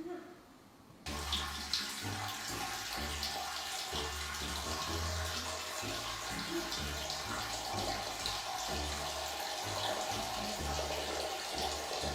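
Background music with a pulsing bass line, starting suddenly about a second in, over a steady water-like rush.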